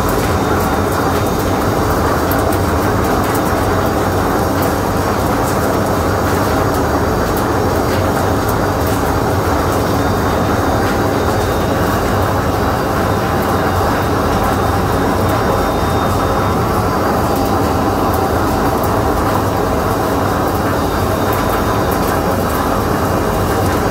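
Olive mill machinery running steadily, with olives rattling as they tumble off a belt conveyor on their way to the crushers. The noise is loud and even, with no pauses.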